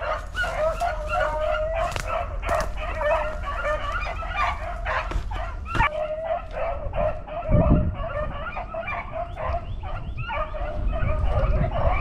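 A pack of beagles baying in many overlapping yelps and barks, running a rabbit's trail.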